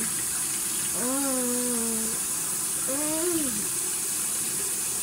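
Bathroom sink tap left running, a steady hiss of water into the basin.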